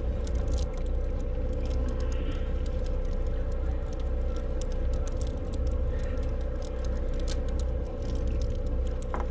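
Fishing boat's engine running steadily: a constant low rumble with a steady hum above it, and scattered small clicks.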